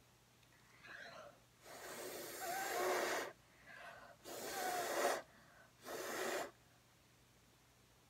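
A person blowing hard by mouth onto wet acrylic pour paint on a canvas to push the paint across it: three long puffs of breath, the first the longest and the last the shortest.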